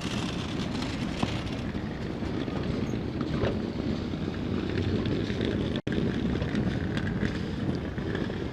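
Wind rumbling on the microphone over a steady outdoor background rumble, which cuts out for an instant once a little past halfway.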